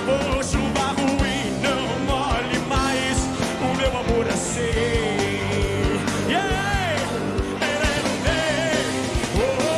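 Rock band playing live: a singer's voice over drums, electric bass and guitar, with a steady beat.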